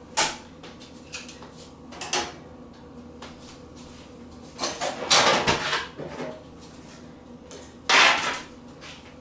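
Kitchen clatter: a couple of sharp clacks as a skillet is set back on the electric stove and metal tongs are put in a utensil holder, then a longer rattling scrape about five seconds in as a metal baking sheet is pulled out, and a loud clatter near the end as the baking sheet is set down on the counter.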